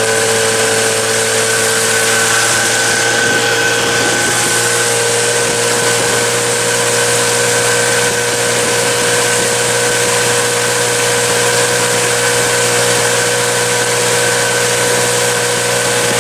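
A boat's outboard motor running steadily under way, a constant drone with an unchanging pitch over a steady hiss.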